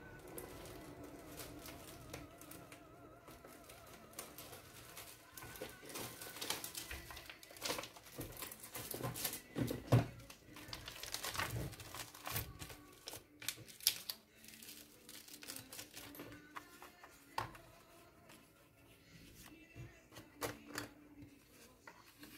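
Paper and craft pieces being handled on a desk: paper rustling and crinkling with scattered light clicks and taps, the loudest a knock about ten seconds in.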